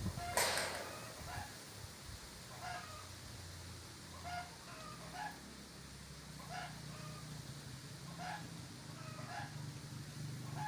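Chickens calling, short calls repeated about once a second. There is a brief rushing noise about half a second in, and a faint low hum underneath.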